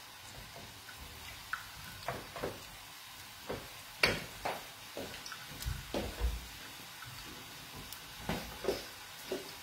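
Wooden spoon stirring crumbled sausage meat in a metal frying pan: scattered scrapes and taps of the spoon against the pan, the sharpest about four seconds in, over a faint sizzle of the meat cooking in white wine.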